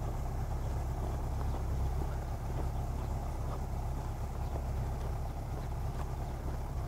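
Tractor engine running steadily as it drives a mounted boom sprayer across a corn field, heard as an even low rumble.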